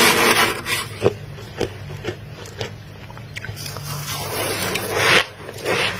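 Metal spoon scraping and scooping through thick, fluffy freezer frost: a rough scrape at the start, a string of sharp crunches about two a second, then a longer scrape that builds and stops abruptly about five seconds in, with a low steady hum underneath.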